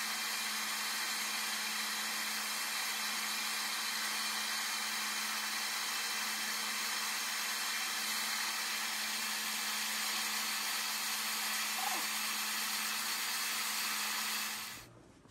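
Handheld gas torch burning steadily, a rushing hiss with a low hum beneath, as it heats the tail's sheet metal to anneal it dead soft; the flame shuts off near the end.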